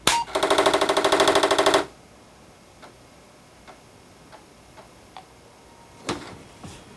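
Apple IIc powering on: a short beep, then the built-in 5.25-inch floppy drive's head rapidly chattering, about ten knocks a second for a second and a half, as it recalibrates against its stop. Scattered single clicks follow as the drive steps across the disk to load it.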